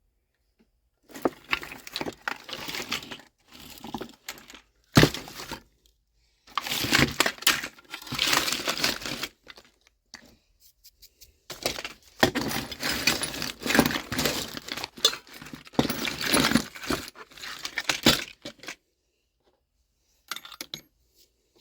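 Rattling, crinkling handling noises in several long irregular spells, with a sharp knock about five seconds in.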